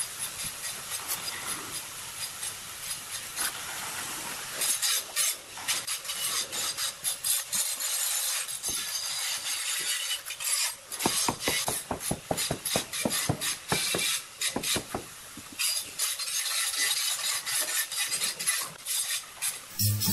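Straightedge and trowel scraping across wet cement mortar, levelling the bed on a step. It starts as a steady scrape, then from about five seconds in becomes a run of short, quick scraping strokes.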